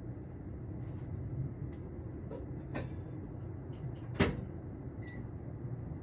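A dog barking in the distance: a few short, sharp barks, the loudest about four seconds in, over a steady low rumble of outdoor background noise.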